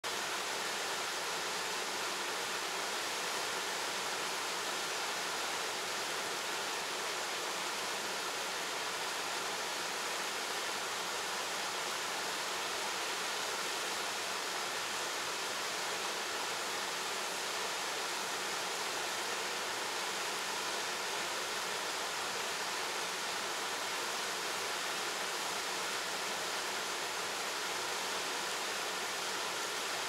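Small waterfall, the Ciucaș cascade on the Hășdate stream, pouring into a rock pool: a steady, even rush of falling water.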